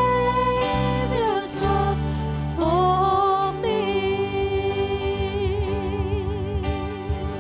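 Slow Christian worship song: a sung melody holding long notes, with vibrato on the last one, over sustained chords.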